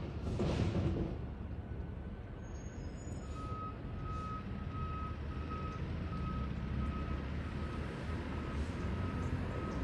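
Garbage truck's backup alarm beeping steadily, about three beeps every two seconds, starting about three and a half seconds in, over the low rumble of the truck's engine. A brief rush of noise, the loudest sound here, comes at the very start.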